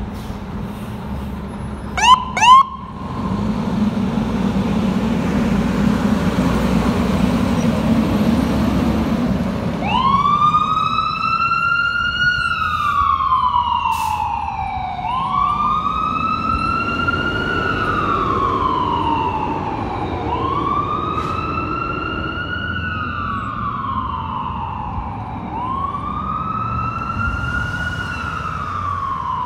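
Fire engine leaving its station: two short, loud siren chirps about two seconds in, then the truck's diesel engine rumbling as it pulls away. From about ten seconds in the siren wails, each cycle rising quickly and then falling slowly, repeating about every five seconds.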